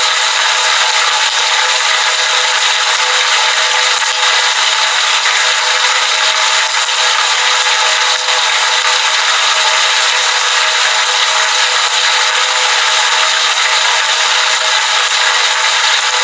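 Heavy rain falling outside a window, a loud, steady hiss with no breaks.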